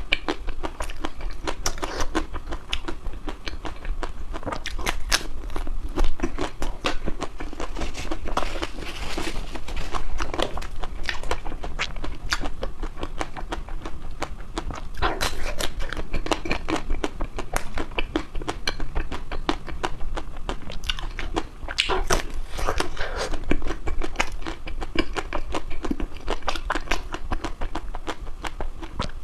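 Close-up chewing and biting of crispy ice cream, a continuous run of irregular crunches and crackles.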